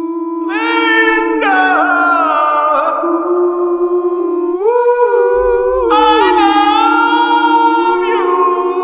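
Music: layered wordless singing, several voices holding and sliding between notes, with no beat.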